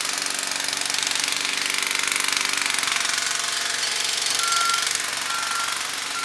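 Pneumatic jackhammer hammering rapidly and without a break, over a heavy machine's engine running for about the first half. From about four seconds in, a beeping alarm sounds short, even-pitched beeps about once a second.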